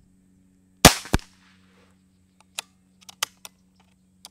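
Unmoderated Brocock Grand Prix S6 .22 PCP air pistol firing one shot: a sharp, loud crack, followed about a third of a second later by a second, quieter crack. Then several light metallic clicks as the action is worked for the next pellet.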